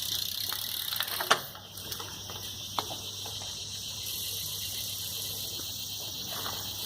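Crickets chirping steadily, with a sharp knock a little over a second in and lighter clicks around it.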